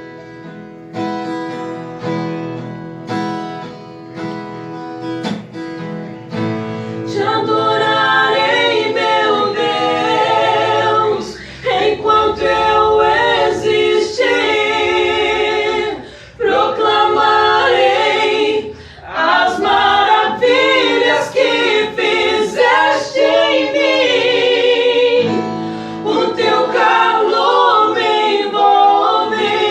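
Christian worship song: an acoustic guitar plays alone for about six seconds, then singing comes in over it with long, wavering held notes.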